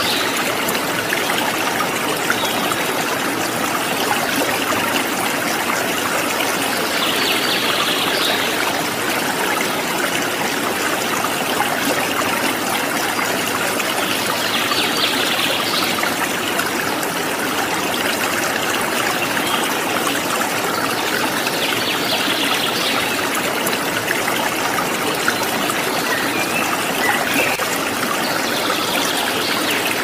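Steady rush of flowing water, like a stream, with a short high-pitched sound recurring about every seven seconds.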